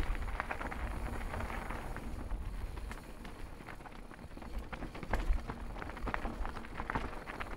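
Mountain bike rolling down a dirt singletrack: tyre noise on packed dirt with scattered rattling clicks from the bike over bumps, under a low rumble of wind on the microphone. It eases a little around the middle, and the rattling picks up again in the second half.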